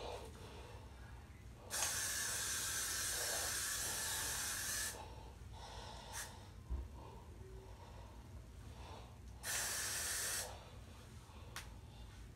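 Aerosol hairspray, a yellow can of Got2b Glued spray, being sprayed onto slicked-back hair: a hiss of about three seconds, then a second, shorter burst of about a second near the end.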